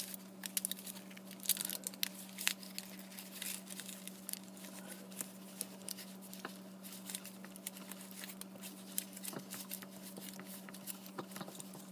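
Aluminum foil crinkling and crackling in quick, irregular clicks as gloved fingers press and fold it over onto itself, over a steady low hum.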